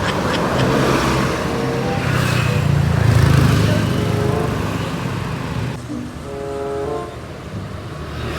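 A heavy road vehicle, a bus or truck, passing with engine rumble and road noise that swell about three seconds in and then fade.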